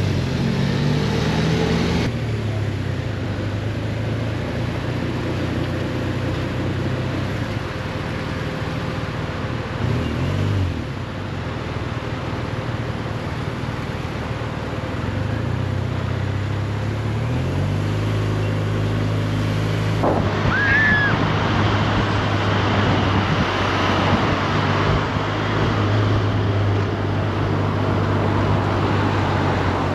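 A vehicle engine runs while moving through slow city traffic, its pitch dipping and rising several times with the revs and climbing in steps about two-thirds of the way through. A steady rushing noise lies under it, and a brief high chirp comes just after.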